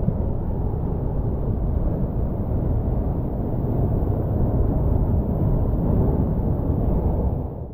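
A steady low rumble of strong wind buffeting the microphone, mixed with the roar of a rough monsoon sea. It grows a little louder past the middle and cuts off abruptly at the very end.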